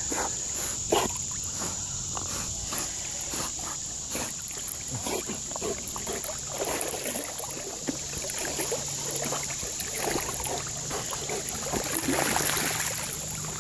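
River water sloshing and splashing in short irregular strokes as Giant Schnauzers wade and paddle, with a louder stretch of splashing near the end.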